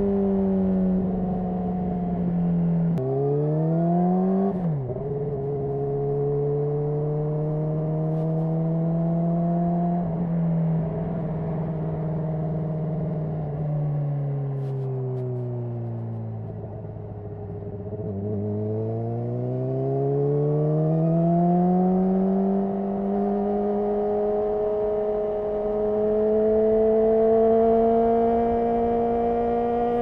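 2010 Honda CBR600RR's 599 cc inline-four running through a Yoshimura RS5 exhaust while riding. It makes two quick upshifts, with the revs climbing and then dropping sharply, a few seconds in, then holds a steady note. The revs sag as the bike slows around the middle, then climb steadily again under acceleration toward the end.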